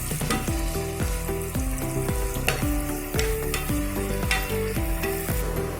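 Sliced onions sizzling in hot oil and ghee in a kadai, with a ladle stirring them and clicking against the pan.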